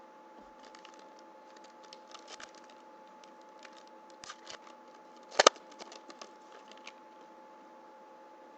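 Foil wrapper of a hockey card pack crinkling and being torn open by hand, with a sharp crackle about five seconds in, followed by lighter clicks as the cards are handled. A faint steady hum lies underneath.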